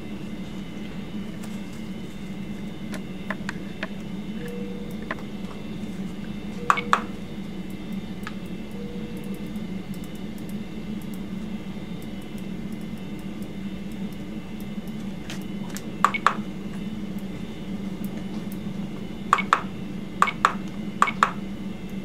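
A steady low hum with a few short, sharp clicks, mostly doubled, from the navigation knob of an Edwards Vigilance II cardiac output monitor being turned and pressed to set a lab value. One click comes about 7 seconds in, another near the middle, and a quick run of three near the end.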